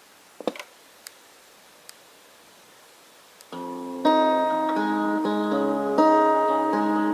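A few light switch clicks, then the National RC-222 clock radio's built-in alarm melody starts playing through its speaker about three and a half seconds in: a slow tune of sustained, plucked-sounding chords that swells louder half a second later, with a new chord about every two seconds.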